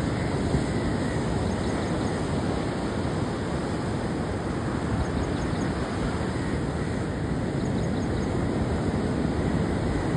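Steady rush of rough sea surf mixed with wind noise.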